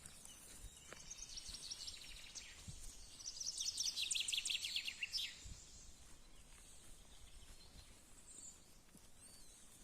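Birds trilling outdoors in rapid runs of high repeated notes, loudest about three to five seconds in, over a steady background hiss.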